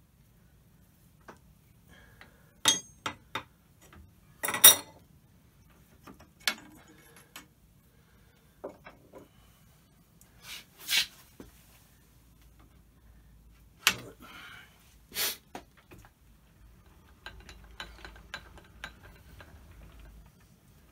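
Hand tools and steel parts clinking and knocking against a lathe's metal chip tray and shafts as an adjustable spanner is used and set down: a scatter of sharp metallic knocks, the loudest about four and a half seconds in.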